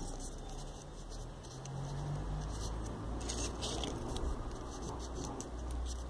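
Faint rustling, scraping and small clicks of folded paper units being handled and pushed onto a 3D origami model, over a low steady rumble.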